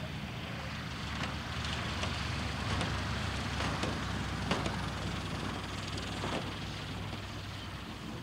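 Bücker Jungmann biplane's LOM M332 four-cylinder inline engine running throttled back in a steady low drone as the plane rolls out on grass after landing. A scattering of sharp clicks and rattles comes through in the middle, and the drone fades slightly near the end.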